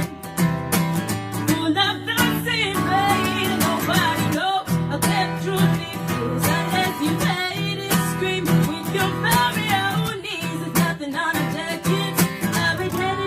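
Acoustic guitar strummed under a woman's sung melody, an original pop-folk song.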